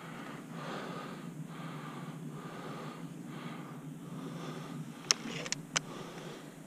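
A person breathing hard, one breath after another at a steady pace close to the microphone. About five seconds in come three sharp clicks in quick succession.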